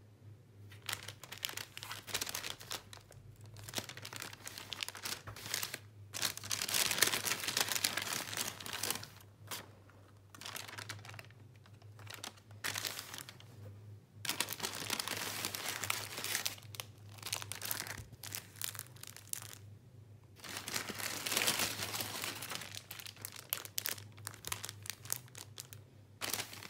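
Brown paper bag crinkling and tearing as it is opened and handled, with phone cases in plastic packaging rustling, in irregular bursts that are loudest about seven seconds in and again around twenty-one seconds in. A faint steady low hum runs underneath.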